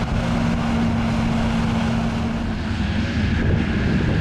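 Tractor engine running steadily at a constant pitch.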